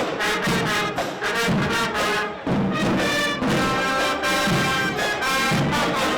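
Marching band playing, with brass to the fore in short phrases of changing notes.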